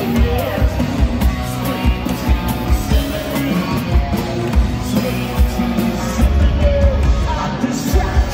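Loud amplified rock music: a drum kit keeps a steady beat under electric guitar.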